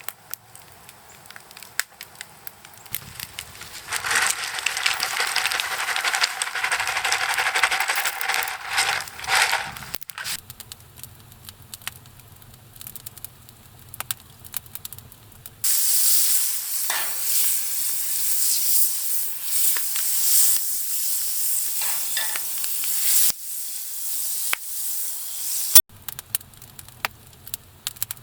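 Food sizzling in a hot pan, in separate stretches: loud sizzling from about four to ten seconds in and again from about sixteen to twenty-three seconds in, with quieter crackles and clicks between.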